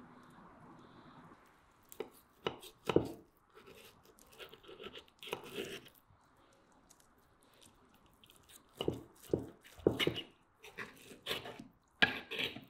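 Knife and fork cutting through a crusty roast steak on a clay plate: crisp crunches and scrapes of the cutlery in several short bursts, starting about two seconds in.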